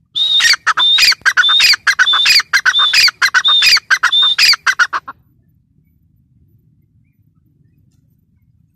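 Grey francolin calling: a fast run of loud, high, repeated call phrases that stops abruptly about five seconds in.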